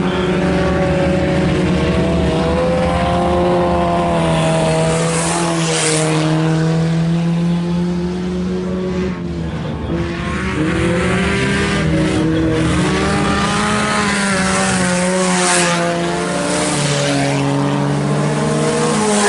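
Several race car engines running laps on a dirt oval, their pitch rising and falling as the cars accelerate and lift through the turns. Several cars pass close by with a brief rush of tyre and engine noise.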